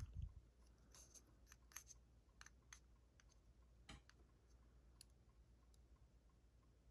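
Faint, irregular clicks of small metal lock parts and tools being handled as a Corbin master ring lock cylinder is taken apart to remove its pins.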